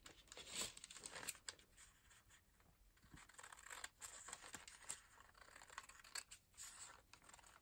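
Scissors cutting a crinkled sheet of rice paper in half: faint, crisp snips with light paper rustling.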